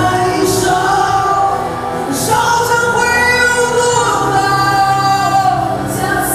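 Men and women singing a song together over music, with held and sliding notes.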